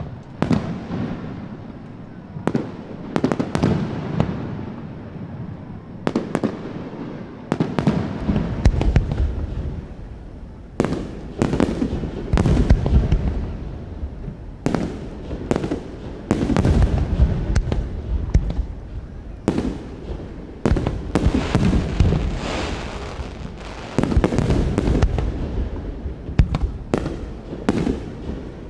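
Aerial firework shells bursting one after another, each a sharp bang trailing off in a rolling echo. After about eight seconds the bursts come thicker and deeper.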